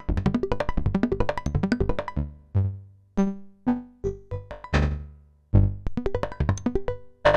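Eurorack modular synthesizer playing short, plucked electronic notes, the functions of the PoliMATHS firing one after another in its follow-the-leader cycle mode. A quick run of notes for about two seconds gives way to sparser notes that ring out longer over low bass tones, then the notes come faster again near the end.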